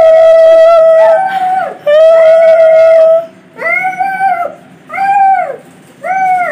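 Conch shell (shankha) blown as the idol is welcomed: two long, steady blasts on one note, then three shorter blasts that rise at the start and sag in pitch at the end.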